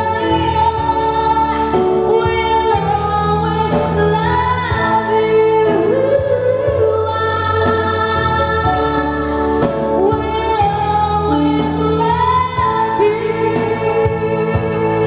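A slow song played on a Roland XP-80 synthesizer, with a singer's voice carrying the melody over long held bass notes.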